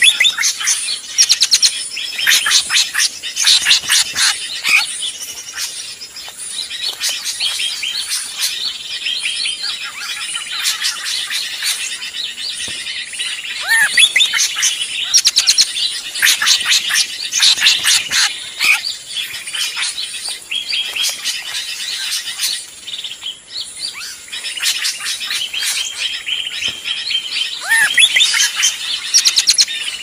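Drongo (trigunting) lure calls: a noisy, unbroken chatter of rapid chirps and whistles, with an occasional downward-sliding whistle. This is the agitated 'ribut' calling used to draw birds in.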